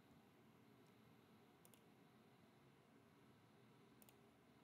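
Near silence with faint room tone, broken by two soft computer mouse clicks, one at about a second and a half in and one at about four seconds in.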